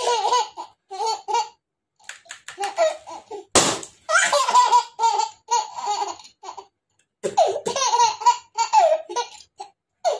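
A woman and a small child laughing in bursts, with a rubber balloon bursting sharply between her teeth about three and a half seconds in.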